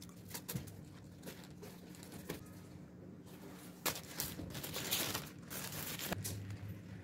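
Mouth sounds of eating French fries: scattered soft clicks and chewing. About four seconds in, a paper food wrapper rustles and crinkles for a second or two.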